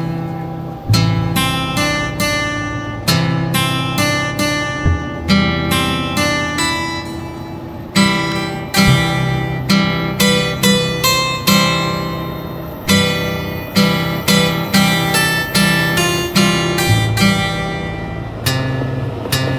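Background music of an acoustic guitar playing a steady run of plucked notes and chords, each note ringing and fading.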